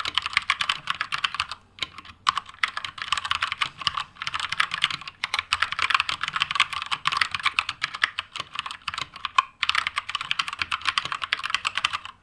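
Keychron K2 mechanical keyboard with Gateron Brown tactile switches being typed on quickly. It makes a dense run of key clacks broken by a few brief pauses.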